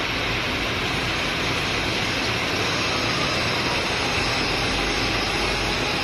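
Metal lathe running steadily, its chuck spinning a steel stud bar, a constant even machine noise without pauses.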